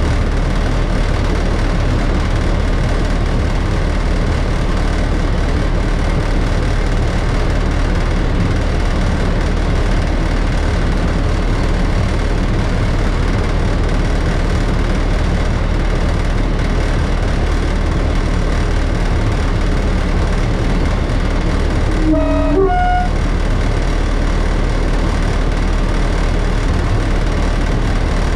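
Steady engine and running noise in the cab of a Class 33 diesel-electric locomotive, whose Sulzer eight-cylinder engine is under way. Late on, the locomotive's two-tone horn is sounded once briefly, a lower note then a higher one.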